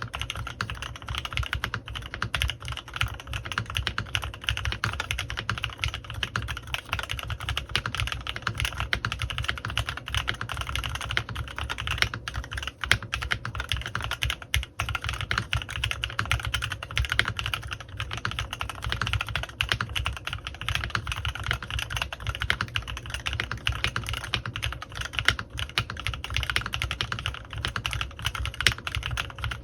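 Continuous fast typing on a CannonKeys Rekt1800 custom mechanical keyboard with Kailh x Swagkeys Lavender prototype switches lubed with Krytox 205g0, PBTfans Resonance PBT keycaps, memory foam inside and a force break mod. The keystrokes run densely without a break, pausing only briefly twice near the middle.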